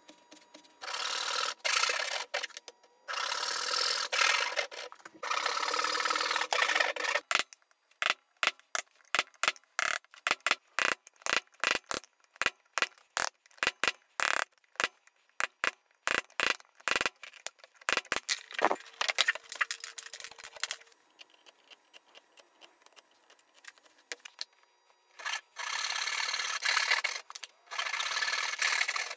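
Hand-cutting dovetails in Douglas fir. A dovetail back saw rasps through the wood in long stretches of strokes, three early on and more near the end. In between is a long run of sharp knocks as a chisel is struck with a mallet to chop out the waste between the dovetails.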